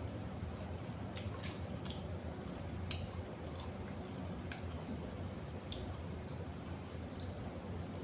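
A person eating a wet, spicy seafood papaya salad with raw vegetables close to the microphone: moist chewing and squishing with scattered small clicks, over a steady low hum.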